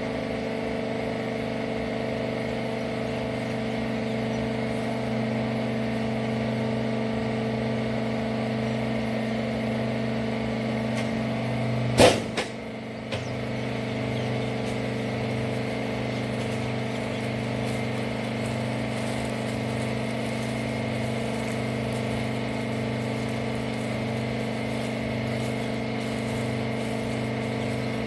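Hydraulic wiper-rag baler machine running with a steady hum. About halfway through there is one loud knock, a brief dip in the hum and two smaller knocks.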